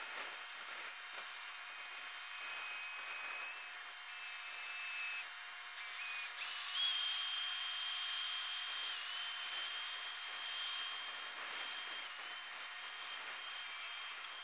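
Track maintenance machines, a tamper and a ballast regulator, working on sped-up timelapse audio: their engines come out as a high-pitched whine with steady tones over a rough hiss. The tones jump up in pitch about six seconds in, and the sound is loudest through the middle, while the ballast regulator's broom is sweeping.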